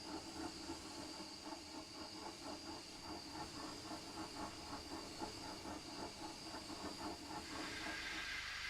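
Steam locomotive chuffing at a steady rhythm, about four to five beats a second, over a hiss of steam. Near the end the chuffing stops and a steadier, brighter hiss takes over.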